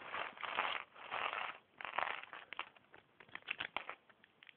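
Plastic Lego parts bag crinkling as it is handled and opened, in three rustles, followed by a run of light clicks and taps.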